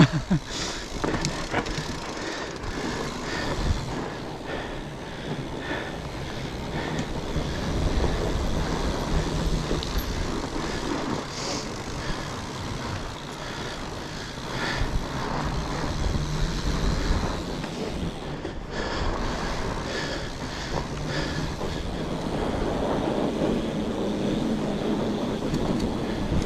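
Fat bike being ridden: a steady rumble of tyres rolling and wind buffeting the microphone, with scattered short clicks and rattles from the bike.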